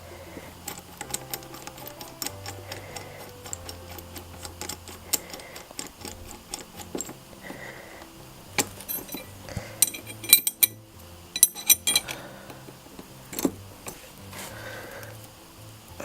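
Metal tool clicks and clinks while a motorcycle chain riveting tool is worked, over background music. There are light rapid ticks through the first half and a cluster of sharp, louder metal clinks about ten to twelve seconds in.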